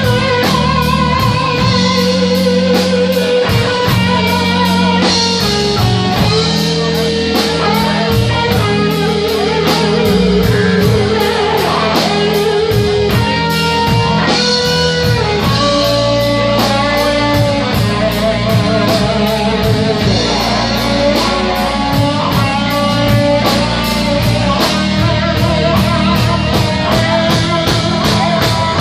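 Live band playing an instrumental blues-rock number: electric guitar with long, wavering notes over a drum kit and keyboard, loud and steady throughout.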